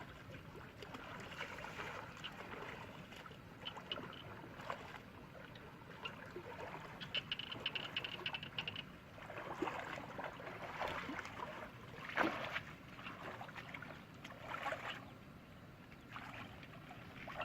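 Water sloshing and splashing in irregular swells, with scattered small knocks.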